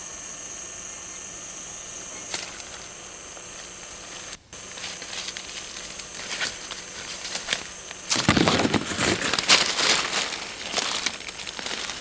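Leaves and undergrowth rustling and crackling as a person pushes through jungle vegetation. It is sparse at first and loudest from about eight seconds in, over a steady high hiss.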